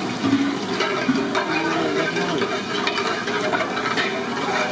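Mustard seeds sizzling and crackling in hot oil in a large aluminium pot, with many small pops, while a long metal spatula stirs them.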